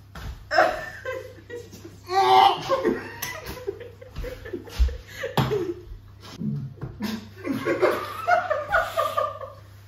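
A group of people laughing hard in repeated bursts, the loudest about two seconds in.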